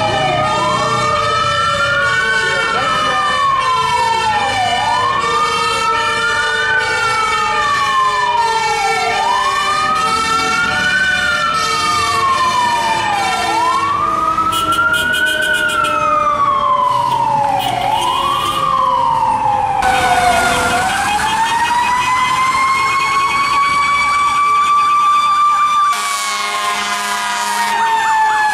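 Fire truck sirens. One wails in a repeating cycle, sweeping up quickly and falling more slowly about every four and a half seconds, over a second siren's long, slowly falling whine. About two-thirds of the way through, the wail gives way to a long slow rise that holds high, then begins to fall near the end.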